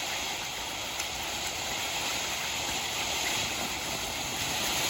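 A 500-gram spinning firework fountain burning with a steady hiss of spraying sparks, one faint tick about a second in.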